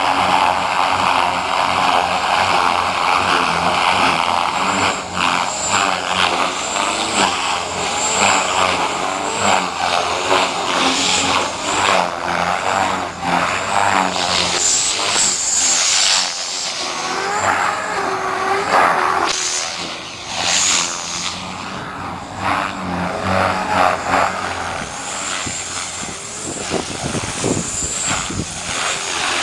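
A 450-size radio-controlled helicopter hovering and flying low: a steady whine of motor and rotor blades that rises and falls in pitch as it manoeuvres, a little quieter in the second half.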